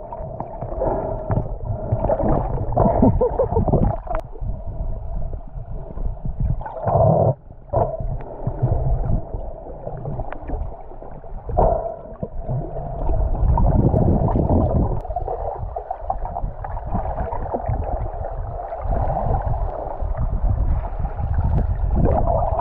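Muffled underwater sound from a camera in a waterproof housing: water sloshing and gurgling around it over a steady hum, with a few louder surges.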